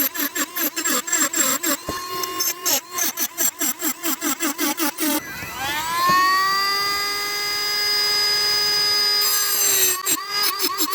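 Rapid back-and-forth rasping strokes of a hand tool working the hatchet, about four to five a second. About five seconds in, a power tool's motor spins up to a steady whine, runs for about four seconds and stops, and the strokes start again.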